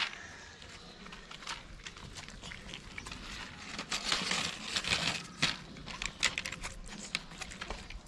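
Cats eating dry kibble from plastic trays: irregular crunching clicks and crackles, busiest around four to five seconds in.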